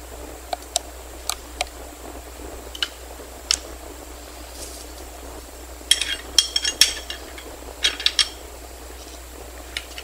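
Light metallic clicks and clinks of hand tools and fittings being handled and set on a workbench. There are a few single clicks in the first four seconds, then two quick clusters of clinking about six and eight seconds in.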